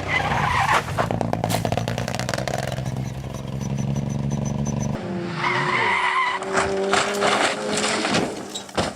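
Rally cars: an engine running hard under a rapid rattle of clicks. About five seconds in, a cut brings tyre squeal and a sliding car, with a few sharp knocks near the end.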